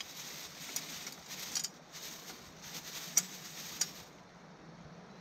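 Live crawfish being emptied into a cooking pot: scattered sharp clicks and clatters of shells against the pot, stopping about four seconds in.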